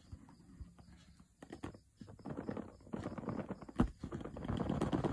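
Cardboard smartphone box for a Samsung Galaxy Note 10+ being opened by hand: scraping and rubbing of the snug lid sliding off the base, with a few light knocks, starting about two seconds in.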